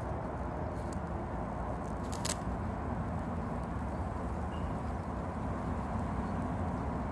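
Steady low background rumble, with one short sharp click about two seconds in.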